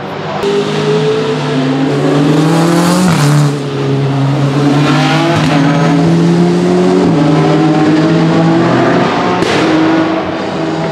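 Race car's 4.0-litre S65 V8 under hard acceleration, in a BMW E87 1 Series GTR. The engine note climbs, then drops sharply twice, about three and seven seconds in, as it shifts up.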